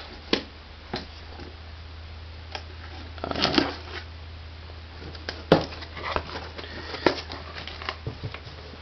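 Cardboard shipping box being opened by hand: scattered scrapes, crinkles and sharp knocks, with a denser stretch of rustling cardboard about three and a half seconds in and a sharp knock about five and a half seconds in.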